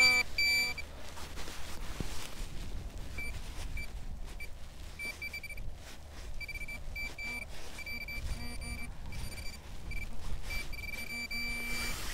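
Metal detecting pinpointer beeping a high tone as it is probed through loose soil in a dug hole. The beeps come in short irregular bursts: a quick cluster at the start, a pause, then more frequent and longer beeps that run into a held tone near the end.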